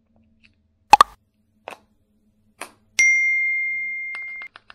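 Subscribe-button animation sound effects: a few sharp clicks, then a single bright bell ding that rings for about a second and a half and cuts off abruptly, followed by a quick run of faint ticks.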